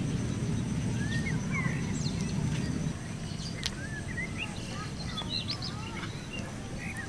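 Small birds chirping in short rising and falling calls, over two steady high whining tones. A low noise drops away about three seconds in, and one sharp tick comes a little after halfway.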